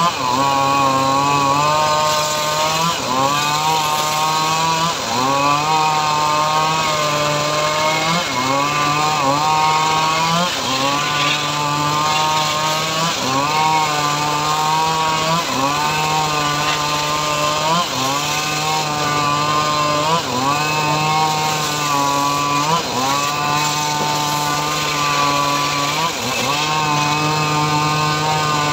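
Homemade engine-driven circular sawmill ripping mahogany planks. The motor runs steadily, its pitch sagging and recovering about every two to three seconds as the wood is pushed into the blade.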